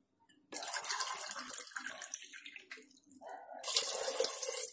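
Water poured from a glass into a pressure cooker of fried chickpeas and masala, splashing into the thick gravy. It comes in two pours, the first from about half a second in, the second and louder one starting just after three seconds.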